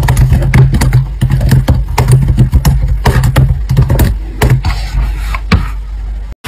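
Fingers typing on a laptop keyboard: a fast, irregular run of key clicks over a low steady hum. The typing stops about a second before the end.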